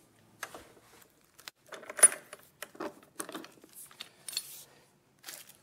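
Steel bar clamps clinking and clicking as they are handled and worked, an uneven scatter of small metallic clicks and knocks with one sharp, louder clank about two seconds in.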